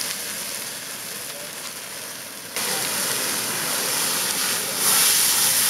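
Portable fire extinguisher discharging onto a burning fuel pan, a steady hissing rush mixed with the rush of open flames. The sound jumps louder suddenly about two and a half seconds in.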